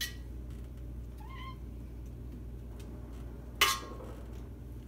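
Domestic cat meowing twice: a faint short meow a little over a second in, and a louder, sharp, brief one about three and a half seconds in.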